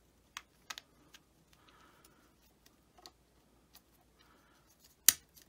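Light clicks and taps of small 3D-printed plastic parts being handled and fitted together, with brief soft rustling between them and one sharper click about five seconds in.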